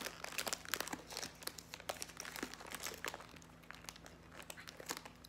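Snack wrapper crinkling and crackling as a small packaged cake is handled and a piece broken off. The crackles are dense for the first few seconds, then thin out to a few scattered ones.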